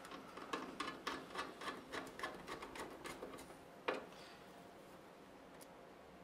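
Fan screw being driven by hand with a screwdriver into a 120 mm fan's frame: a run of small ticks, about three or four a second, fading out, then one sharper click.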